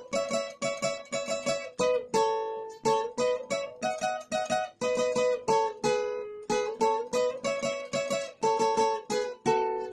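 Acoustic guitar with a capo, picked note by note: a lead melody of quick plucked notes over chords, a few notes a second without a break.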